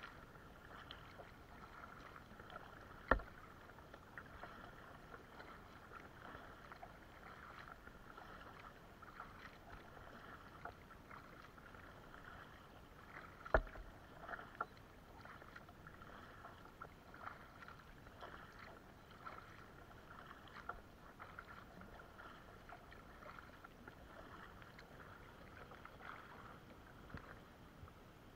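Water lapping and splashing lightly against the hull of a plastic Pelican kayak moving over calm sea, with small irregular ticks throughout. Two sharp knocks stand out, about three seconds in and about thirteen seconds in.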